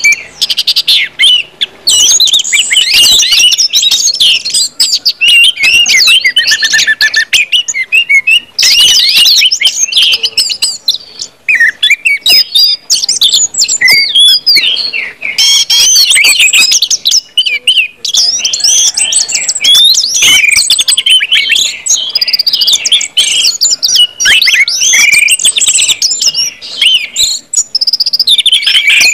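Orange-headed thrush singing loudly in full song: a long, nearly unbroken run of rapid, varied whistled and twittering phrases with only brief pauses.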